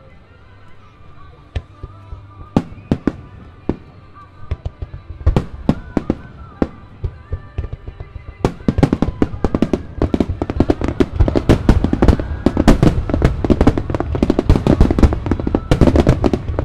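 Starmine fireworks display: a few scattered sharp booms of launches and shell bursts from about two and a half seconds in, building from about eight and a half seconds into a dense, continuous barrage of booms and crackling bursts that grows louder.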